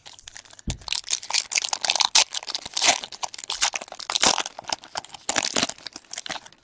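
Foil wrapper of a 2016 Diamond Kings baseball card pack being torn open and crinkled by hand: a dense run of crackling with sharp tearing spikes, starting a moment in.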